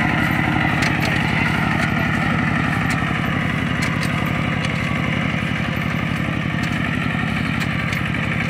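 Single-cylinder diesel engine of a two-wheel walking tractor chugging steadily as it pulls a loaded trailer through a ploughed, muddy rice field.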